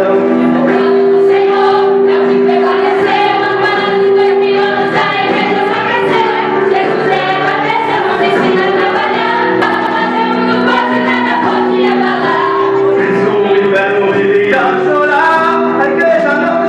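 A vocal group singing Christian worship music, several voices together holding long sustained notes.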